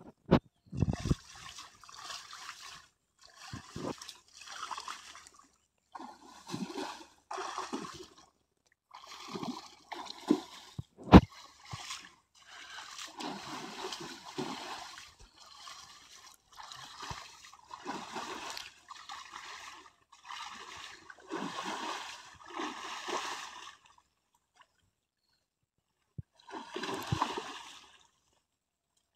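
Water splashing over and over in short bursts about a second long with brief gaps between them. A few sharp knocks come in among the splashes; the loudest comes about eleven seconds in.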